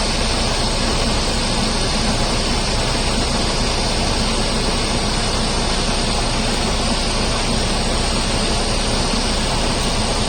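Steady, unbroken rumble and hiss of a running engine, likely a vehicle nearby, with no change in pitch or level; no clear snip of the wire cutters stands out above it.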